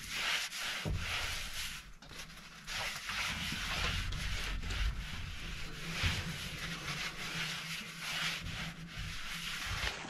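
A wad of paper towel being rubbed over the warm surface of a large round metal pan in repeated scratchy swipes, about one or two a second: oil being wiped onto the pan.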